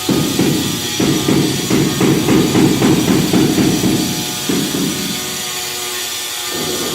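Background music with steady tones, overlaid from about one to four seconds in by a dense run of quick scraping and tapping strokes.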